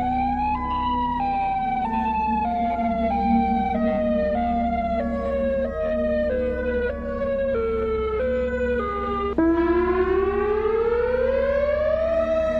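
Warning siren sounds: a wailing tone that steps down in pitch about three times every two seconds, then cuts off abruptly about nine seconds in to a louder siren that slowly rises in pitch and begins to fall again near the end. A steady low hum runs beneath.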